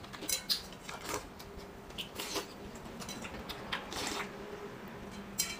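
Repeated short slurps of soup broth from a spoon and from the rim of a metal bowl, with now and then a light clink of the spoon on the bowl.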